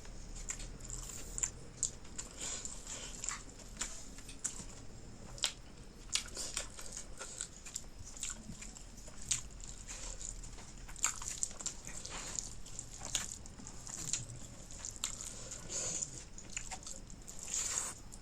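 Close-miked eating sounds from a person eating fish curry and eromba: wet chewing and lip smacks, with many irregular short clicks throughout.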